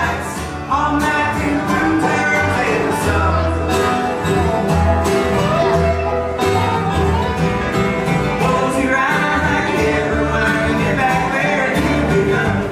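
Acoustic bluegrass band playing live: fiddle, acoustic guitar, mandolin, banjo and resonator guitar over an upright bass plucking a steady beat.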